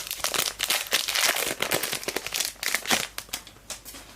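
Foil wrapper of a trading card pack crinkling and tearing as it is ripped open and handled. The crackling is dense and irregular and dies away about three and a half seconds in.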